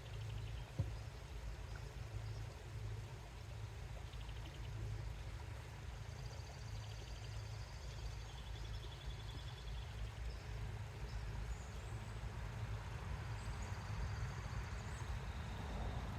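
Outdoor background: a steady low rumble with faint high bird chirps, and one sharp knock about a second in.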